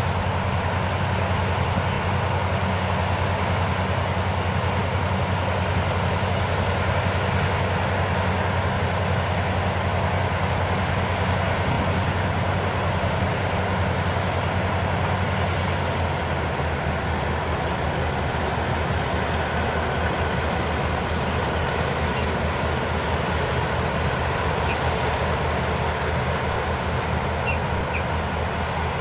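Palesse GS12 combine harvester running steadily while it unloads grain through its auger, heard as a steady low engine drone from across the field. The drone turns a little rougher and quieter about halfway through.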